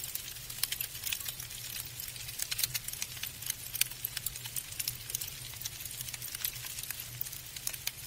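Falling snow pattering: a dense, irregular run of fine, light ticks as grains of snow strike, with a low steady hum underneath.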